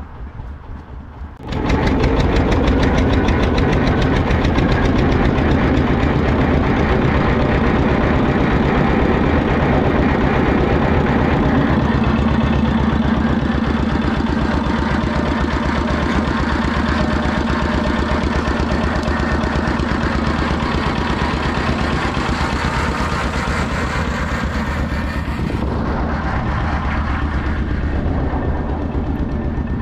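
An engine running steadily, cutting in abruptly about a second and a half in, with a fast even beat.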